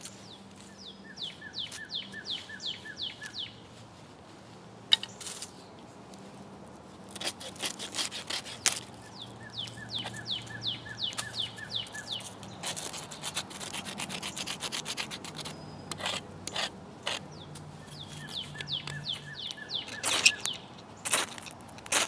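A blade scraping over dry wood and a ferro rod in runs of quick rasping strokes. Near the end come a few louder, sharper scrapes as the spine of a Leatherman Wave's saw strikes the ferro rod to throw sparks onto the tinder.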